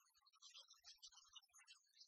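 Near silence: the audio is muted, with only faint scattered digital chirps.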